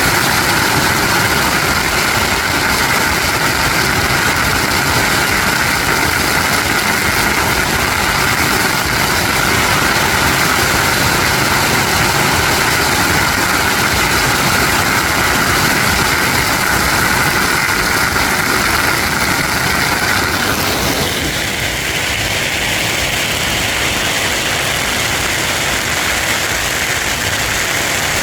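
Long strings of firecrackers going off in a continuous, dense crackle, loud and unbroken, thinning slightly about three-quarters of the way through.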